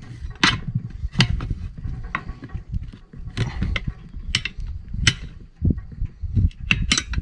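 Tire irons prying the bead of a small tractor's front tire up over the steel rim: irregular sharp clanks and scrapes of metal on metal and rubber, several a second, over a low rumble of handling.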